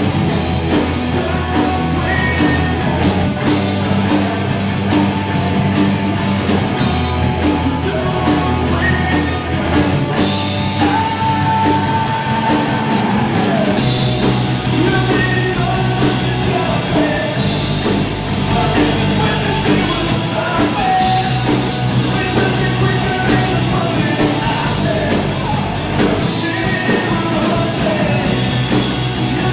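Live rock band playing at full volume: electric bass, electric guitar and drums with cymbal hits, and a voice singing over them.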